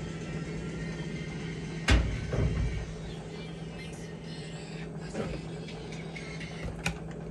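A frying pan set down on a gas stove's cast grate with one sharp knock about two seconds in, followed by a short scrape or rumble and a few lighter clicks later. A steady low hum runs underneath.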